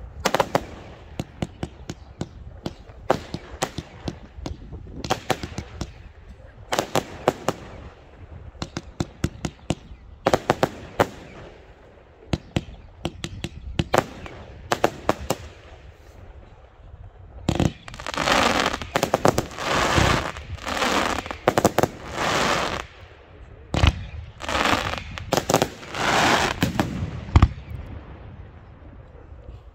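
Fireworks display with aerial shells and batteries going off: a quick series of sharp bangs, then from a little past halfway longer, denser bursts of noise, each lasting about a second, overlapping with the bangs.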